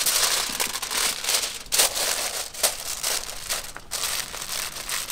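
A plastic packaging bag crinkling as it is handled: an irregular rustle with a few sharper crackles.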